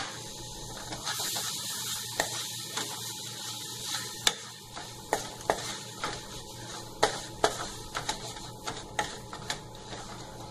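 Wooden spatula stirring and scraping a thick mix of milk powder, ghee and condensed milk in a nonstick kadai, with sharp knocks of the spatula against the pan every second or so over a steady faint hiss.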